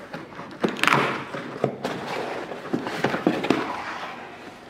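Cardboard shipping box being opened by hand: a rasping rip as the tear strip is pulled about a second in, then scrapes and light knocks of cardboard as the lid flaps are lifted.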